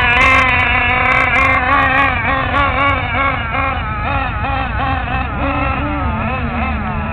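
Small engine of a radio-controlled off-road truck running hard, its pitch swinging up and down about twice a second as the throttle is worked, then settling steadier and lower near the end.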